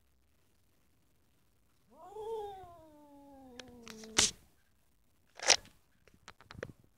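Fighting cats: one cat gives a drawn-out yowl of about two seconds, falling in pitch, that breaks off in a sharp spit. About a second later comes a loud hiss, then a few short clicks.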